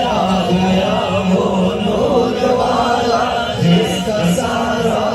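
Male voices chanting a naat, an Urdu devotional poem, in long drawn-out notes of a slow melody.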